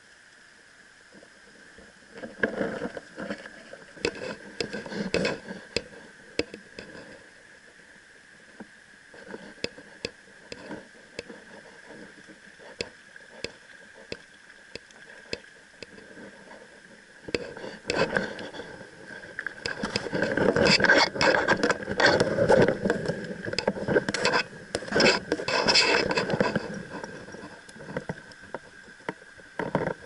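Rubbing, scraping and clicking handling noise from clothing and gear moving against a body-worn camera, in a short busy stretch a few seconds in and a longer, louder one in the second half.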